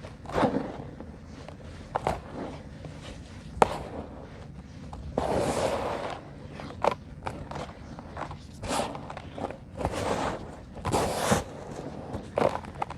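Dry lumps of sand-and-concrete mix being crumbled by hand: irregular crunches and sharp cracks. Longer gritty crumbling comes about five seconds in and again near eleven seconds.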